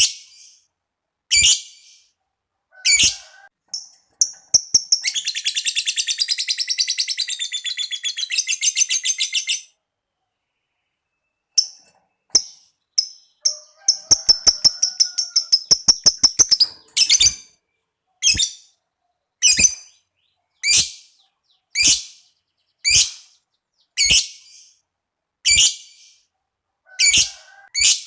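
Lovebird calling: short shrill single calls about once a second, broken twice by long runs of very rapid chattering, the 'ngekek panjang', one about 5 s in lasting some four and a half seconds and another near the middle lasting about three seconds.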